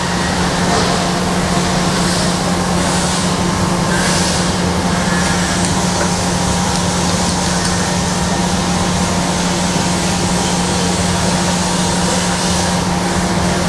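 Steady mechanical hum of running shop machinery, with a strong low drone.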